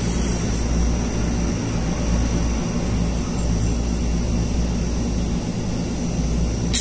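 Steady low mechanical hum of a room air conditioner running, with a faint high whine over it. A short sharp click comes right at the end.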